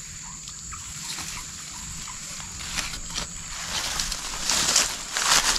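Steady high-pitched insect chirring in the background, with rustling and handling noises that grow louder over the last second or two.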